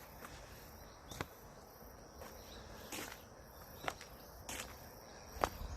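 Faint steady chirping of insects, with a few footsteps about a second apart.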